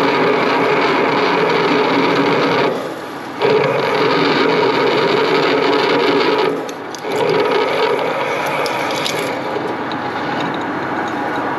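A metalworking machine tool cutting steadily in three long runs, with two brief breaks in the cut about three and seven seconds in.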